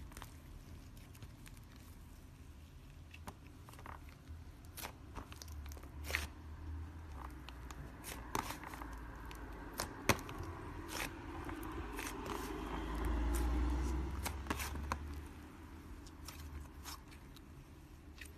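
Slime being made by hand: irregular small clicks, crackles and scrapes of sticky material being worked, with a low rumble swelling for a couple of seconds just past the middle.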